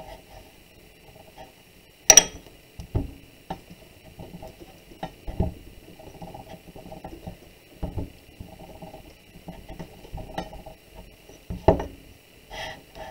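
A wooden dowel rolled back and forth over a lump of clay on a wooden board, with hands pressing and patting the clay. The dowel rattles as it rolls and knocks against the board in a run of thumps, the sharpest about two seconds in and another near the end.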